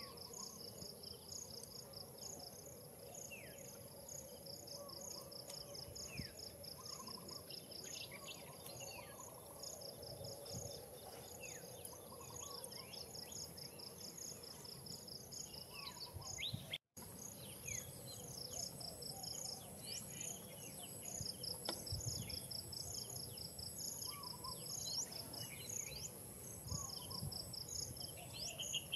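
Outdoor forest ambience: insects chirping in a fast, even pulse over a steady high-pitched whine, with scattered short bird chirps. The sound cuts out for an instant about halfway through.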